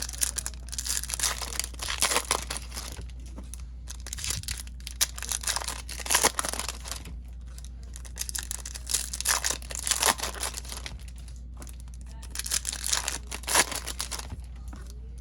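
Foil wrappers of Topps Chrome trading-card packs being torn open and crinkled, in irregular bursts of rustling and crackling, over a steady low hum.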